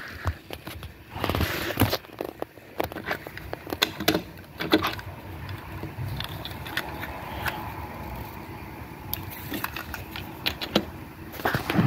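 Diecast toy vehicles being handled and moved on a wooden tabletop: scattered small clicks, knocks and scrapes, with a louder rubbing rush about a second in.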